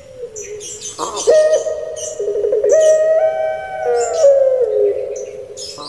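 Puter pelung (Barbary dove) cooing: one long, wavering coo that starts about a second in, steps up in pitch midway and slides down toward the end, with high chirps from smaller birds over it.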